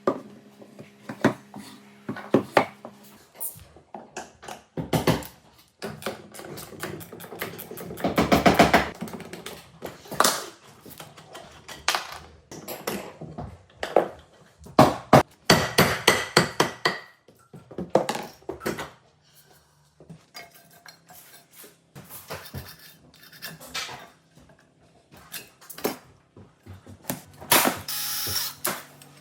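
Carpentry work sounds from fitting a wooden newel post: scattered knocks, taps and scraping of tools on wood, with a couple of denser busy stretches.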